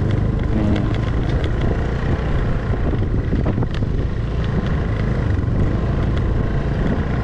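Honda scooter's engine running steadily as it rides slowly over a rough, muddy dirt road, under a dense low rumble of wind and road noise, with scattered light clicks and rattles from the bumps.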